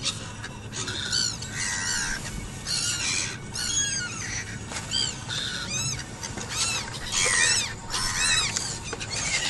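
Seagulls calling over and over, a run of short, high, arching squawks, some overlapping.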